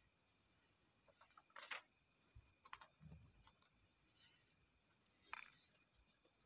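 Crickets chirring steadily in a high, rapidly pulsing trill, with three sharp clicks of something being handled. The loudest click comes about five seconds in.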